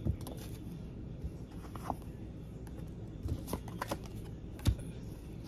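A tarot deck being shuffled by hand: soft slides and taps of the cards, with a sharper snap of cards about four and a half seconds in.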